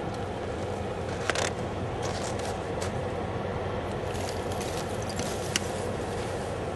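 Steady low rushing noise with scattered sharp cracks and crackles, the loudest a little over a second in and again near the end.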